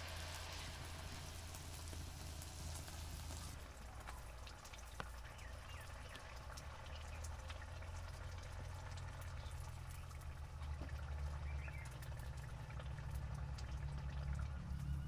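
Sel roti (rice-flour batter rings) deep-frying in a wide pan of hot oil: a sizzling hiss, brighter for the first few seconds and then softer, with scattered crackles. A low rumble runs underneath and grows near the end.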